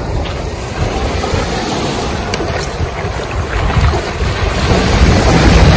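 Wind buffeting the microphone over small surf waves washing up a sandy beach, the wind growing louder near the end.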